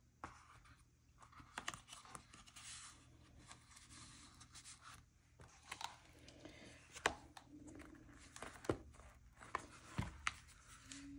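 Faint rustling and sliding of cardstock as the pages and fold-out flaps of a handmade paper photo album are turned, with a few sharp clicks and taps of the card against itself and the tabletop.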